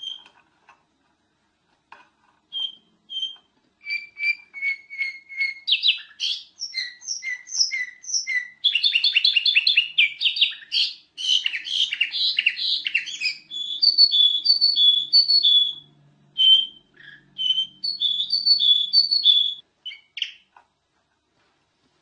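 A kutilang emas bulbul singing: a long song of clear whistled notes repeated in short phrases, with a fast, dense chattering run in the middle, ending about two seconds before the end.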